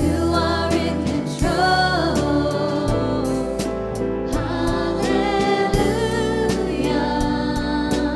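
Contemporary worship song: sung vocals over a band with a steady beat and sustained bass.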